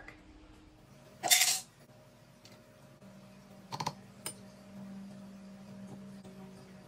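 Kitchen handling sounds as ingredients go into a Nutribullet blender cup: a brief scraping rustle a little over a second in, then a few sharp clinks of hard objects against the cup about four seconds in, over a faint steady low hum.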